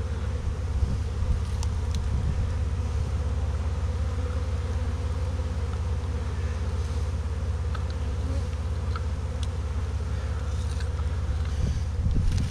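A swarm of honeybees buzzing steadily: the dense, even hum of thousands of wings.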